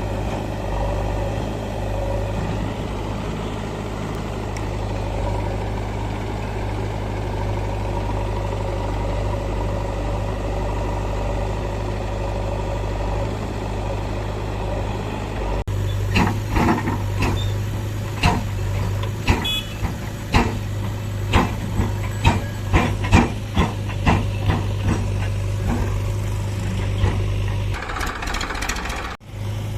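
Heavy diesel engine of a JCB 3DX backhoe loader running steadily at work. About halfway in, a run of sharp, irregular knocks, roughly one a second, sounds over the engine for about ten seconds.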